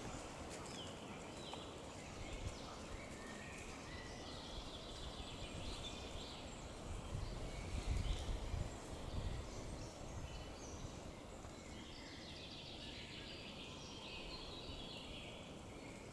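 Wild birds singing and chirping, many short calls overlapping throughout, over steady outdoor background noise; a low rumble swells briefly about halfway through.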